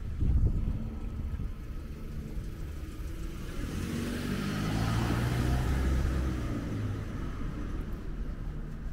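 A car passing out of sight, its engine and tyre noise swelling to a peak about five seconds in and then fading away. A brief low thump sounds just after the start.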